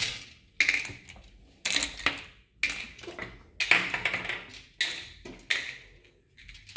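Small sugar-coated chocolate buttons clicking and tapping on a glass tabletop and into small bowls as they are picked up and sorted by hand, in short clusters of clicks about once a second.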